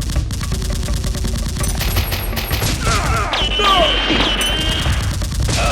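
Rapid automatic gunfire sound effects: a fast, continuous run of shots. Partway through, a falling, wavering high tone rises above the firing.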